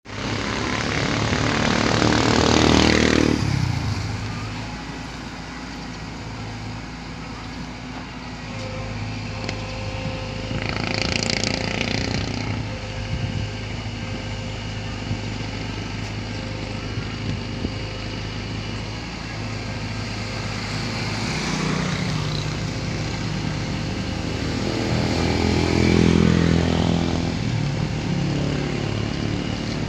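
Motor engines running steadily, with two louder swells that rise and fall, one a couple of seconds in and one near the end.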